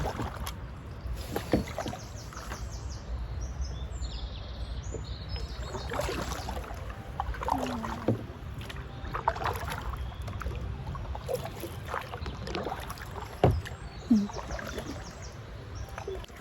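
Kayak paddles dipping and splashing in calm river water at irregular strokes, over a steady low rumble of wind on the microphone.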